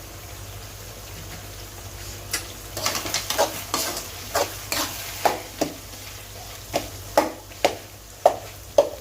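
Mutton brain fry cooking in a pan. A faint steady sizzle runs throughout, and from about two seconds in a cooking utensil stirs and scrapes against the pan in sharp strokes, about two a second.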